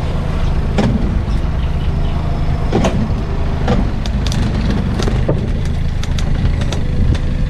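A motor engine running with a steady low drone, with scattered knocks and clatters over it.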